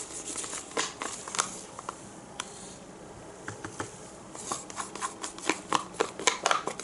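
Irregular light clicks, taps and scrapes of plastic paint cups and a stir stick being handled while acrylic paint is mixed and poured into a cup. The clicks come more often in the second half.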